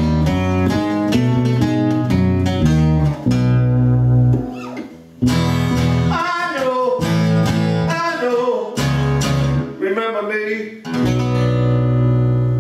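Acoustic guitar strummed in rhythm with a voice singing over it. Near the end a chord is strummed and left to ring out.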